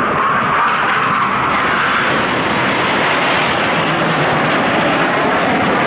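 Aermacchi MB-339 PAN jet trainer flying by, its single turbojet making a loud, steady roar.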